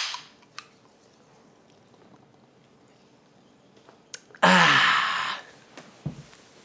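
Aluminium soda can cracked open by its pull tab: a sharp pop and a short hiss of carbonation that dies away quickly. About four and a half seconds in comes a loud, breathy vocal sound about a second long, falling in pitch, and shortly after it a dull knock.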